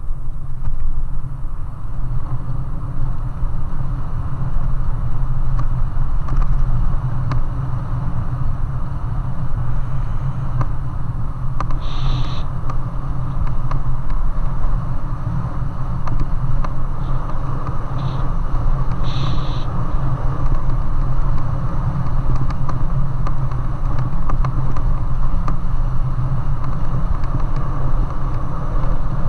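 Wind buffeting the microphone of a helmet-mounted camera on a moving bicycle, with tyre rumble on a rough concrete road: a loud, steady low rumble. Brief high squeaks cut through twice, about twelve and nineteen seconds in.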